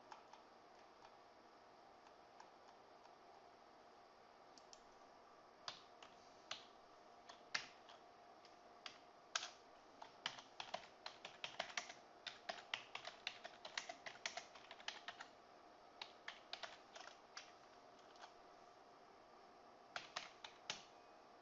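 Faint computer keyboard keystrokes and clicks: a few scattered ones, then a quick run of typing in the middle and a short burst near the end, over a faint steady hum.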